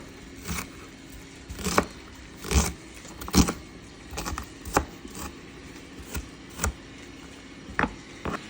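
Kitchen clatter: about a dozen irregular knocks and clinks of utensils and cookware, some louder than others, over a low steady hum.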